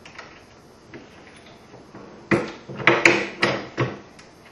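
Reloading press and brass .308 case being worked during full-length resizing: a few faint ticks, then from about halfway a quick run of about six metal clunks and clinks.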